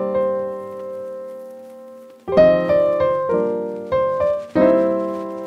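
Background music of piano chords. One chord is held and fades away over about two seconds, then several chords are struck in a slow rhythm.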